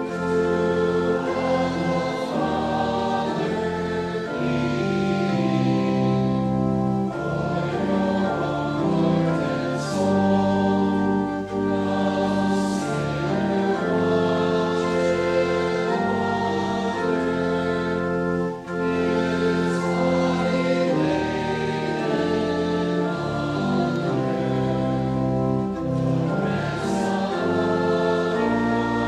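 A slow hymn, sung with accompaniment, each chord held steadily for about a second before moving to the next.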